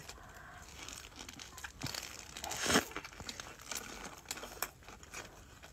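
Paper burger wrapper crinkling as a double cheeseburger is held and bitten into, with close-up chewing; the loudest rustle comes just before the middle.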